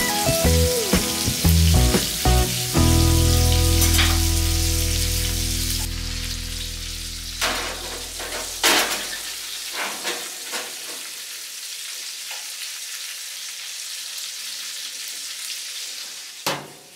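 Aluminium foil crinkling and crackling with sharp rustles as it is folded and pressed around a cooked steak. Background music plays with a held chord that fades out over the first several seconds.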